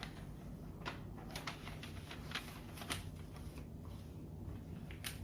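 Light handling sounds: a scatter of soft clicks and rustles over a low steady hum.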